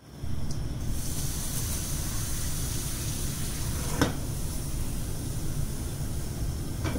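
Gas burner running under a non-stick appam pan, with drops of water sprinkled on the pan sizzling steadily as a test that the pan is hot. One short tap about four seconds in.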